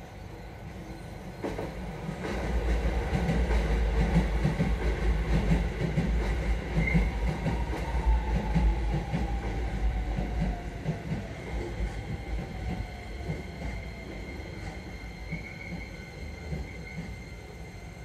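Keisei Electric Railway commuter train passing over a level crossing: a low rumble of wheels knocking over the rail joints. It builds about two seconds in, is loudest for the next several seconds, then fades, with a whine that slowly falls in pitch.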